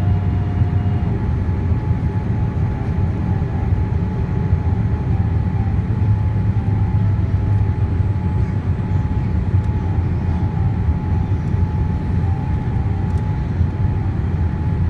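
Steady in-flight cabin noise of a Boeing 787-8, heard from a seat by the wing: a loud low rumble of airflow and engines, with a thin steady high tone over it. A second, slightly lower tone stops about a second in.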